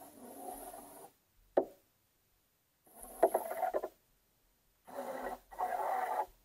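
Muffled underwater rumble and sloshing heard through an action camera's waterproof housing. It comes in short bursts broken by dead-silent gaps, with one sharp click about one and a half seconds in.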